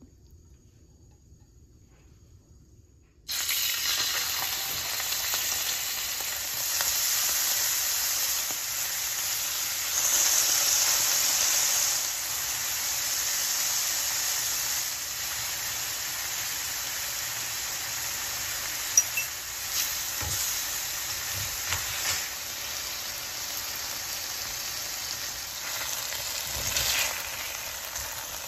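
Food sizzling as it fries in a pan, starting suddenly about three seconds in and then going on steadily, with a few light clicks of a utensil stirring it.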